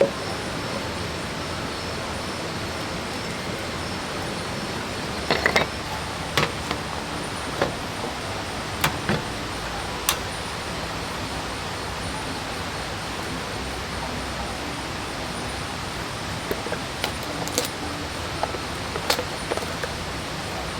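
Steady rushing of a waterfall and stream, with scattered sharp clicks and knocks of camp gear being handled.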